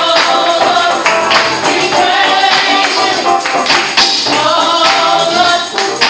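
Youth choir singing a gospel praise song, with a tambourine shaken and struck in a quick steady rhythm.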